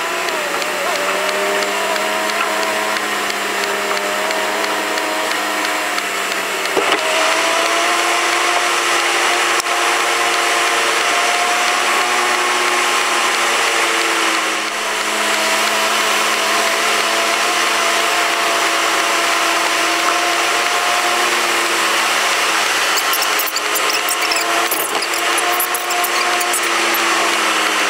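Car engine and drivetrain droning inside the cabin at road speed: a steady whine whose pitch wavers slightly and shifts about seven seconds in, then starts to fall at the very end.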